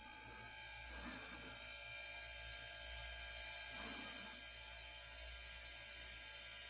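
Jun-Air Model 3-4 oil-lubricated air compressor running steadily, a mechanical noise with several steady tones and a strong high hiss, which eases a little about four seconds in. This is the noise the owner reports as a problem with the unit.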